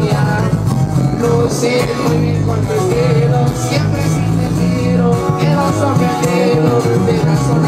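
A sierreño band playing live: a man singing over strummed guitars and a heavy bass line.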